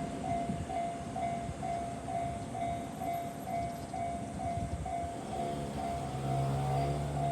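Japanese level-crossing alarm ringing steadily, about two strikes a second, while a JR Yokohama Line train runs through with a rumble of wheels on rail. A steady low hum joins about five seconds in.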